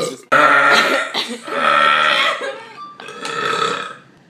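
A person belching loudly: several long, drawn-out burps in a row, the middle one held on a steady pitch.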